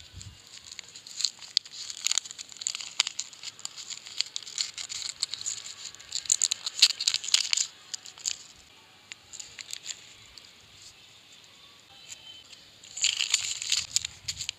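Plastic candy wrappers crinkling and tearing as they are peeled open by hand, in busy spells with a quieter stretch past the middle and a loud burst of crinkling near the end.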